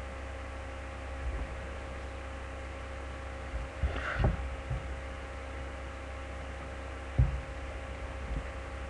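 Steady electrical hum, with a brief rustle and soft knocks about four seconds in and a single low knock a little after seven seconds, from handling near the microphone.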